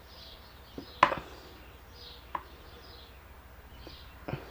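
A few light clicks and taps from small phone parts and tools being handled. The loudest comes about a second in, another just past two seconds, and one near the end.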